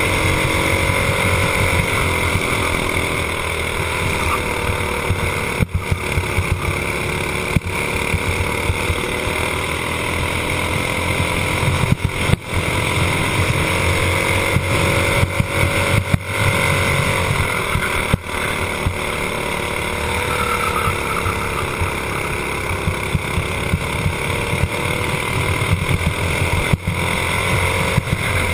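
Racing kart engine heard from on board, running hard at speed, its pitch dipping and climbing again several times as the driver lifts off for corners and gets back on the throttle.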